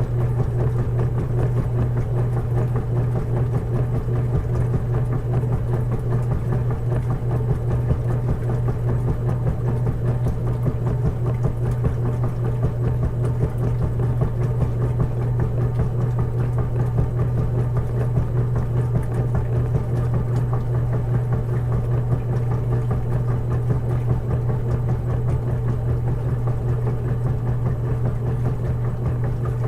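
Washing machine running with a steady, unchanging low hum.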